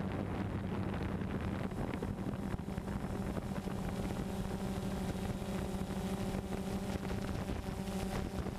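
Multirotor drone's motors and propellers humming steadily at a constant pitch, heard through the camera on board, with wind noise on the microphone.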